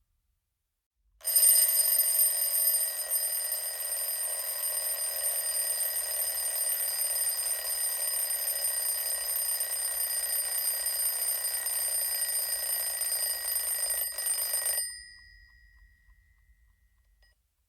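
Mechanical clock bell ringing continuously, a rapid metallic ring that starts abruptly about a second in, is loudest at the onset, and stops about 15 seconds in with a short fading ring.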